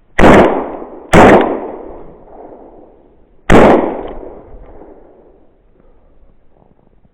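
Three gunshots from a hunting gun: two in quick succession, under a second apart, then a third about two and a half seconds later. Each report echoes away over a second or two.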